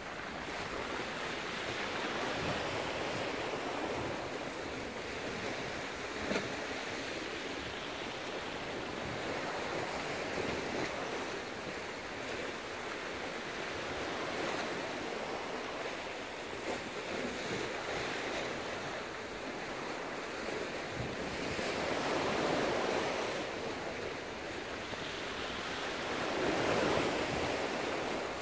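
Rough sea surging against a rocky shore, the wash of the waves swelling and easing every few seconds, with wind on the microphone.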